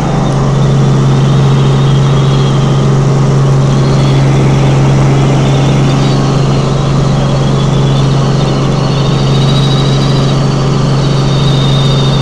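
Helicopter cabin noise in flight: a loud, steady drone of engine and rotors, dominated by a strong unchanging low hum, with a faint high whine wavering above it.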